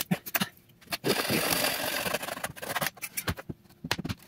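Saw cutting through plywood in a burst of about two seconds, followed near the end by a few sharp knocks against the wood.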